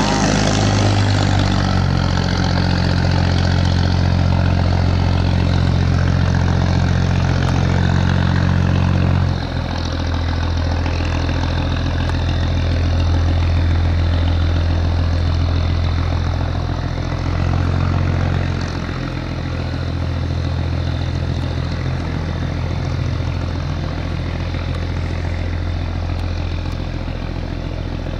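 Diesel engine of a laden stone-carrying steel barge running hard against the current: a loud, steady low drone, with water rushing and splashing around the hull. The engine note shifts slightly and eases about nine seconds in, and dips again about two-thirds of the way through.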